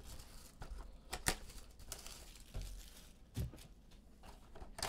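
Plastic shrink wrap being torn and crinkled off a cardboard trading-card box, in irregular crackles and sharp clicks.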